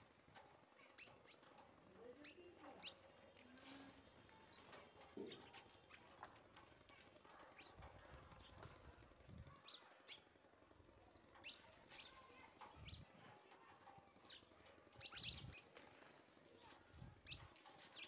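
House sparrows chirping faintly at a seed feeder: short, scattered chirps, busiest about three-quarters of the way through, with a few soft wing flutters as birds land and take off.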